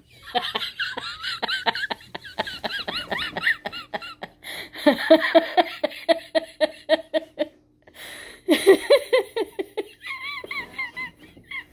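A person laughing hard in three long fits of rapid pulses, with short breaks between them.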